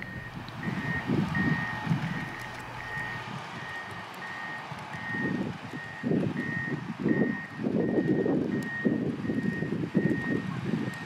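Reversing alarm of heavy construction equipment beeping on one steady pitch, about two beeps a second, over an uneven low rumble.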